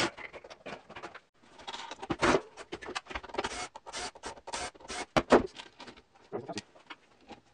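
Plastic parts of a stand fan's motor head knocking and clicking on a table as it is taken apart, with a couple of longer scraping, whirring stretches between the knocks.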